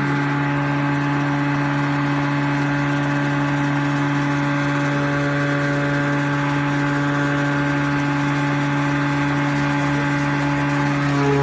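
Greenworks electric push mower running steadily, its motor and blade giving a constant hum with no change in pitch.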